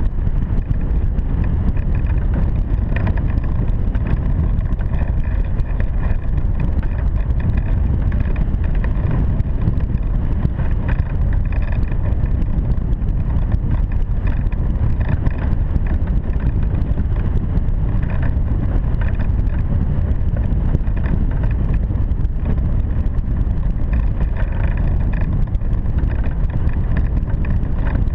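Wind rushing over a camera microphone mounted on a hang glider in flight: a steady, loud, deep rumble of airflow buffeting that never lets up.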